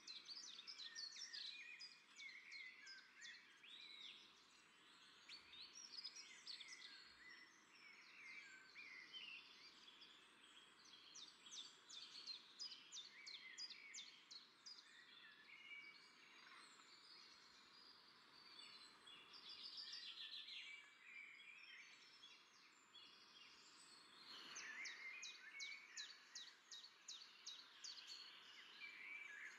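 Many small birds chirping and twittering together, faint, with rapid trills and overlapping calls throughout.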